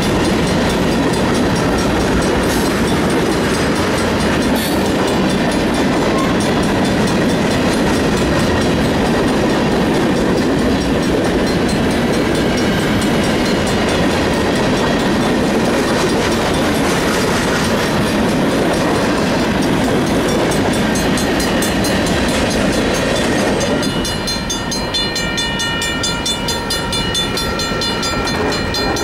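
Freight train of covered hopper cars rolling past at close range: a steady loud rumble with the clatter of steel wheels on the rails. Near the end the rumble drops as the cars move off, and a steady high-pitched tone comes in.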